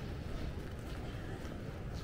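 Outdoor street ambience: a steady low rumble with no single clear event.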